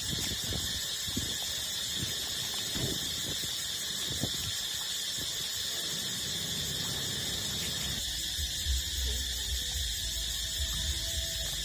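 Puppies suckling at their mother's teats, with short soft smacking sounds over a steady high-pitched drone. About eight seconds in, a low rumble comes in under the drone.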